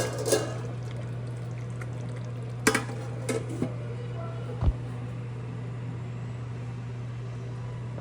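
Utensils clinking and knocking against a cooking pan, a few sharp strikes between about two and a half and three and a half seconds in and a dull thump near five seconds, over a steady low kitchen hum.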